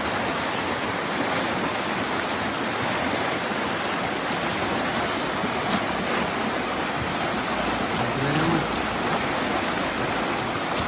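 Rain-swollen woodland stream rushing in white-water rapids over and around a fallen log: a steady, even rush of churning water, running high after heavy rain the day before.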